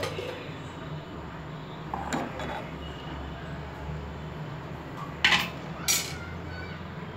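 Metal ladle stirring curry in a metal pot, clinking against the pot: a few light knocks about two seconds in and two louder clanks near the end, over a low steady hum.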